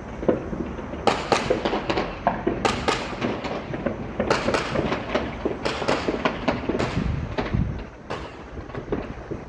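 A rapid, irregular string of sharp bangs from celebratory gunfire and fireworks, many coming in quick clusters. They thin out near the end.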